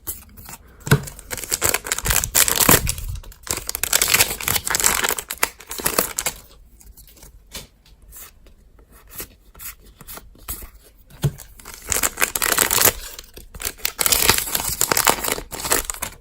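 Pokémon card booster pack wrapper being torn open and crinkled, in two spells of tearing and rustling with a quieter pause between them.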